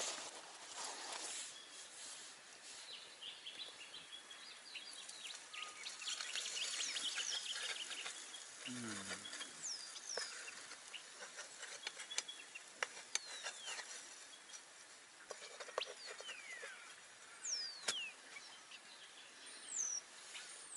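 Birds calling outside with short, quick falling whistles, more of them in the second half, over faint background noise. Scattered light clicks and knocks come from a camp frying pan and tongs being handled.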